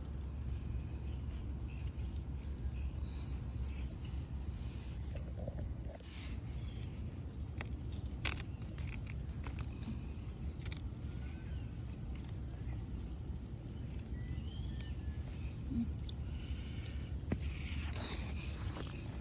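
Small birds chirping, short high calls scattered throughout, over a steady low rumble; a few sharp clicks are heard now and then.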